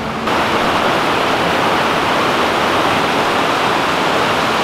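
A rocky mountain stream rushing over stones: a steady, even roar of running water that cuts in abruptly just after the start.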